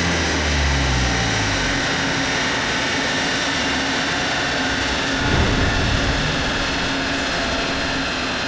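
Alfa Romeo 4C's 1750 TBi turbocharged four-cylinder, breathing through a Supersprint cat-back exhaust, winding down off the throttle at the end of a dyno run, its revs falling over the first second or so. After that a steady rush of noise as the wheel keeps spinning on the dynamometer roller.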